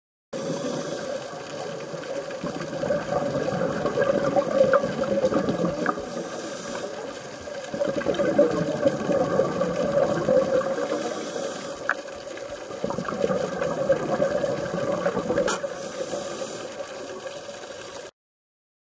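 Underwater sound of a scuba diver's regulator breathing and exhaust bubbles, swelling and fading in a slow cycle of about five seconds.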